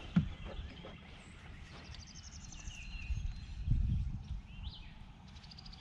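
Songbirds calling: a fast high trill about two seconds in and again near the end, with a few short whistled calls between. A steady low rumble lies underneath, and there is a single sharp knock just after the start.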